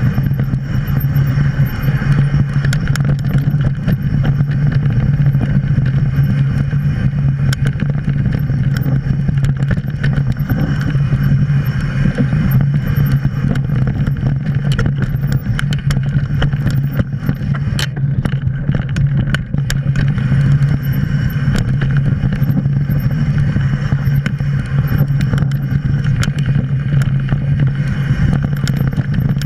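Mountain bike rolling fast down a dirt singletrack: a steady low rumble of tyres, wind and the bike, broken by frequent short clicks and knocks from the trail.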